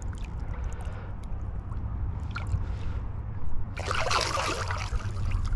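Water sloshing and splashing, starting suddenly about four seconds in after a few faint drips and trickles, over a steady low rumble.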